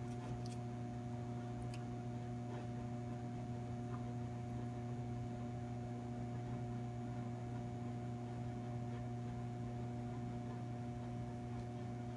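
400 W mercury vapor HX autotransformer ballast humming steadily under the load of two 150 W high pressure sodium lamps run in series, a low even hum with a few higher overtones.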